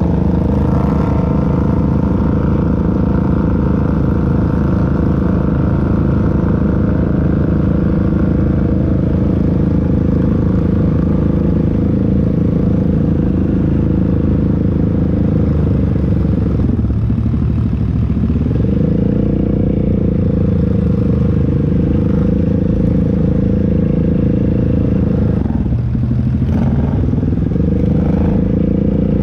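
ATV engine running steadily under throttle, easing off briefly twice, past the middle and near the end, then picking back up.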